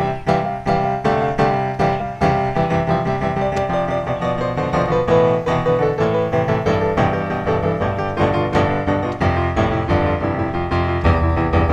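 Background piano music: a steady stream of notes at an even pulse over held lower chords.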